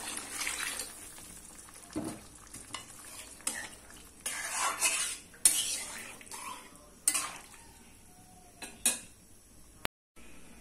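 Water poured into a pot of simmering chana dal, then a metal spatula stirring and scraping against the metal karahi, with a string of separate scrapes and clinks.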